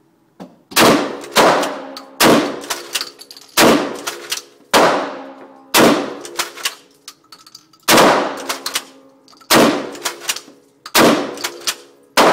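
Kel-Tec KSG 12-gauge pump shotgun firing birdshot in quick succession, a string of loud shots about one to two seconds apart, each followed by a short ringing echo, with the pump action worked between shots.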